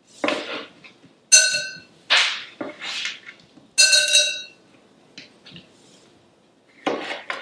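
Two sharp ringing clinks of kitchenware, about two and a half seconds apart, each ringing briefly like glass or ceramic being struck. Softer scraping and rustling of food prep fall between them.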